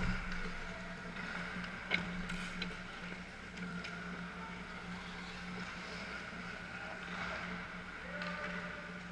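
Ice rink game sound: a steady low hum under the noise of skates on the ice, with a sharp knock at the start and another about two seconds in, the kind a stick striking the puck makes.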